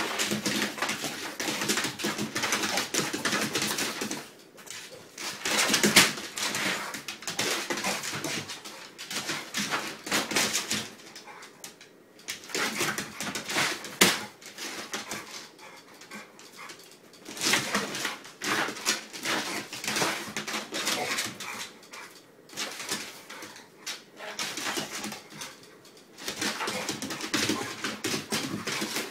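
Blue pit bull frantically chasing a laser dot over a wooden floor: claws scrabbling and clicking on the boards in bursts, with the dog whining, and quieter lulls between the dashes.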